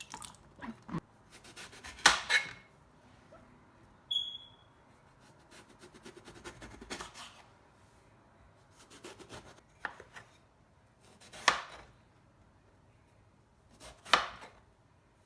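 Knife cutting food on a chopping board: a few sparse, irregular cuts, the loudest about two, eleven and fourteen seconds in. A short metallic ping rings about four seconds in.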